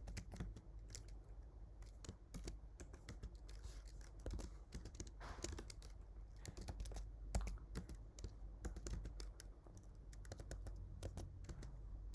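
Computer keyboard being typed on: an irregular run of keystroke clicks as code is entered.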